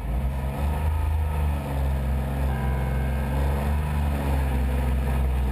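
Rally buggy's engine running steadily at low revs, heard from inside the cabin.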